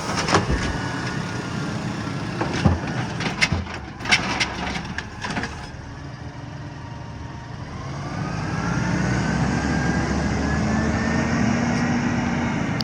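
Garbage truck working: a series of sharp clanks and knocks over its idling diesel engine, then the engine revs up, its pitch rising steadily for the last few seconds.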